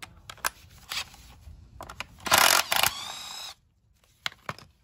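Cordless impact wrench hammering on a 10 mm timing-cover bolt of a Honda B-series engine for under a second, then whirring freely as the bolt spins out, and stopping suddenly. Light metal clicks and clinks before and after.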